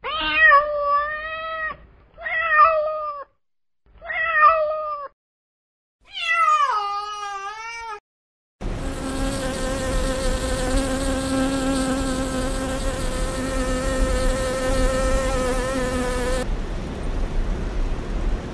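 A domestic cat meowing four times, the last meow longer and falling in pitch. Then, about nine seconds in, a honeybee buzzing steadily in flight for about eight seconds over a steady background hiss, which carries on after the buzz stops.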